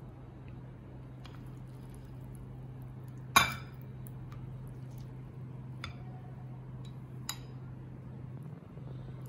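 Ceramic bowls clinking against each other as cooked ramen noodles are tipped from one bowl into another of broth: one sharp, ringing clink about a third of the way in, and a few lighter clicks after.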